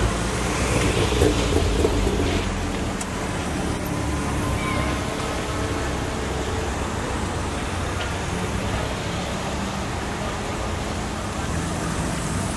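Engines of a slow queue of Ford cars and vans idling and creeping forward, a steady low traffic rumble that is loudest in the first couple of seconds.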